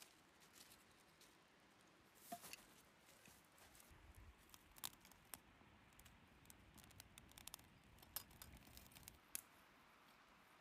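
Faint crackling of a small fire of dry leaves and conifer twigs burning in a folding firebox stove: irregular sharp ticks with a few louder pops.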